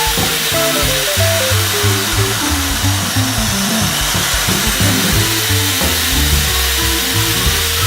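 Background music with a bass line over a Sturm ID2195P electric impact drill. The drill winds down just after the start, then spins up again about five seconds in and runs with a steady whine.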